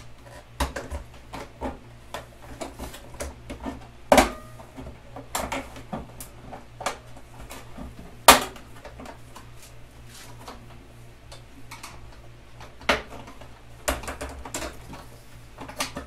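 Flat-head screwdriver prying the old plastic face off a microwave door: a run of clicks, scrapes and sharp plastic snaps as the face works loose from its clips, the two loudest about four and eight seconds in.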